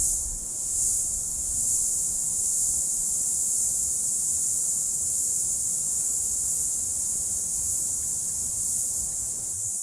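Steady, shrill chorus of insects, swelling a couple of times near the start and then holding as a continuous high-pitched drone.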